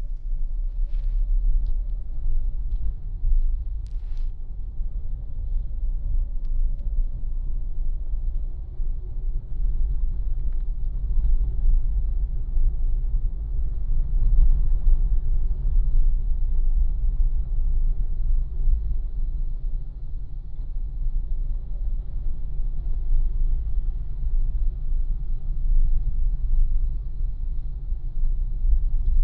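Steady low rumble of a moving road vehicle, with no distinct engine note or single events.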